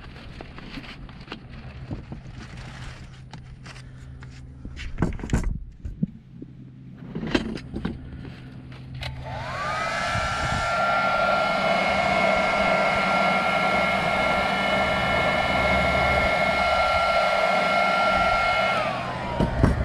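A handheld heat gun, a hair-dryer-like blower, switches on about nine seconds in. Its fan whine rises to a steady pitch over a loud rush of air, holds, then winds down as it is switched off near the end. Before it comes on there are scattered clicks and knocks of things being handled.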